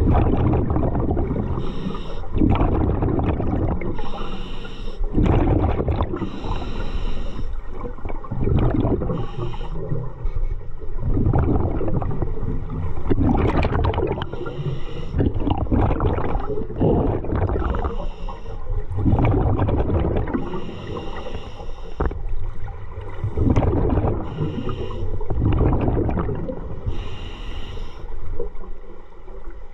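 Scuba diver breathing through a regulator underwater. A hiss on each inhale alternates with a burst of gurgling exhaust bubbles on each exhale, repeating every few seconds.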